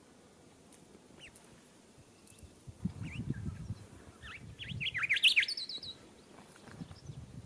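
Rufous whistler calling: a burst of quick, sharp chirps and whistled notes lasting about three seconds from a few seconds in, ending in a fast run of repeated notes. Low bumping noise sounds underneath at the same time.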